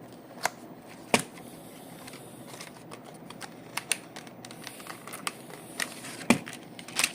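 A cardboard box being opened by hand and its packaging handled: scattered light clicks, taps and rustles.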